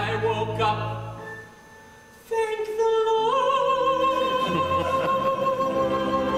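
A man singing a show tune in a full operatic voice over orchestral accompaniment. A short phrase and a brief lull, then about two seconds in he takes a long high note, steps it up once a second later and holds it with a slight vibrato.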